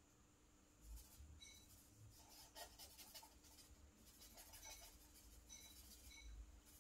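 Faint scratching of a charcoal stick on paper in a series of short, irregular strokes, starting about a second in.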